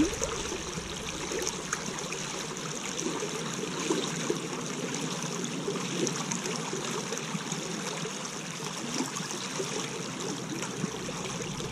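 Shallow rocky creek running steadily, its water trickling and babbling over stones.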